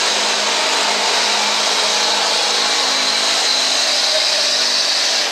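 Diesel Chevrolet pickup engine running hard at full throttle under load while pulling a weighted sled, with a steady high whine over it that stops near the end.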